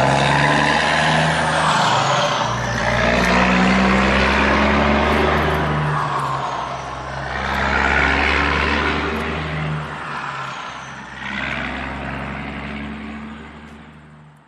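Truck engine pulling away and accelerating through the gears. It swells, eases off at each of about three shifts with a short falling whistle, then fades out near the end.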